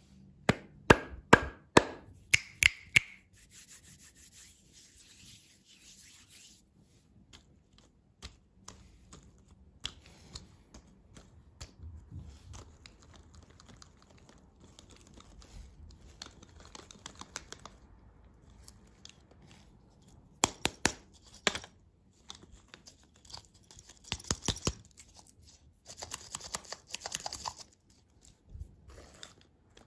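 Fingers tapping on ball-shaped toy-surprise lollipops: a quick run of sharp taps at the start and another cluster a little after twenty seconds, with soft rubbing and handling between. Near the end, plastic wrapping crinkles and tears as one lollipop is opened.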